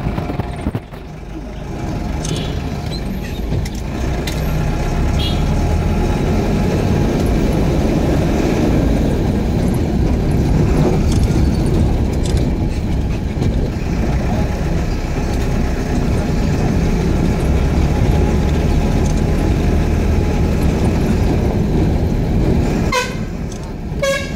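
Steady low engine and road noise of a moving vehicle, with a horn sounding twice in short bursts near the end.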